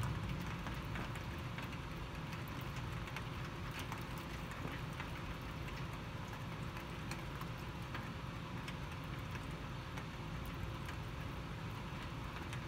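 Heavy rain falling steadily, with many small ticks of drops striking close by.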